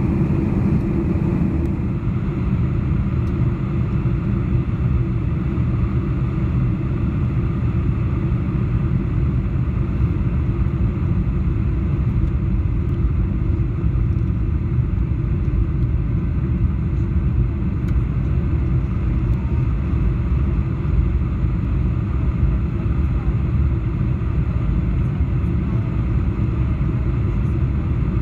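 Steady low cabin rumble of a Boeing 747-400 airliner in flight, its four engines and the rushing airflow heard from inside the cabin at a window seat over the wing.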